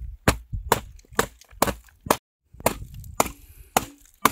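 A knife chopping food on a cutting board, with sharp, even strokes about two a second and a short break a little past halfway.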